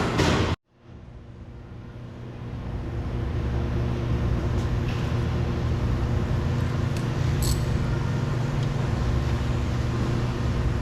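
The sound cuts out about half a second in, then a steady low background hum, vehicle or traffic-like, fades back up over a couple of seconds and holds, with a few faint clicks.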